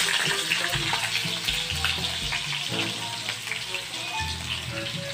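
Sliced onion and garlic sizzling and crackling in hot oil in a wok, just after the onion has gone in.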